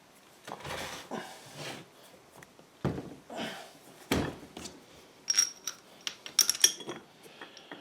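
Soft rubbing and handling of metal parts, then, in the second half, a quick run of sharp metallic clinks with a ringing tone as steel bolts are dropped into the holes of a lathe chuck and its mounting plate.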